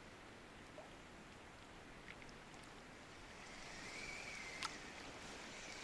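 Faint, steady rush of river water, with a few light clicks and a brief faint high tone about four seconds in.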